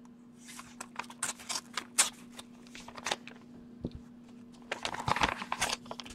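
Paper mailing envelopes being handled and opened, a run of crisp rustles and crinkles, busiest about a second in and again near the end. A faint steady hum runs underneath.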